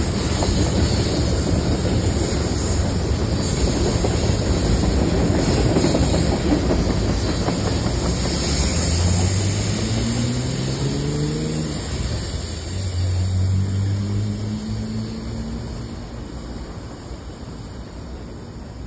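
Freight cars rolling past, a steady rumble and rattle of wheels on the rails. A low hum rises in pitch about halfway through, and then the sound fades as the end of the train moves away.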